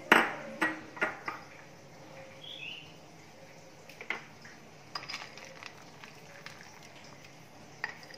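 A wooden spoon knocking against an aluminium pot of payasam while stirring: four sharp knocks in the first second and a half, the first the loudest, then a few lighter clinks.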